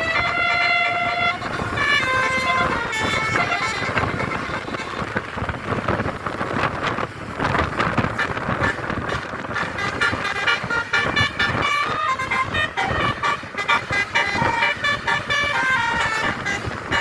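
Bus 'telolet' musical air horns playing quick tunes of stepped notes over the noise of the buses, once near the start and again through the second half.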